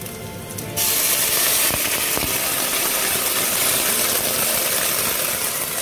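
Hot water poured into a hot, oiled stainless-steel pan of noodles, sizzling loudly. It starts suddenly about a second in and keeps on steadily.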